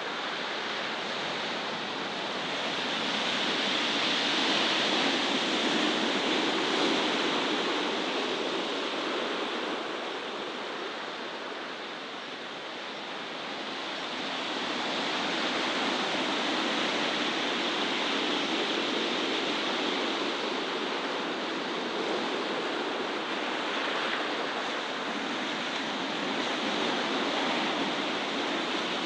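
Steady outdoor rushing noise, like wind or distant surf, slowly swelling and easing, with no distinct events.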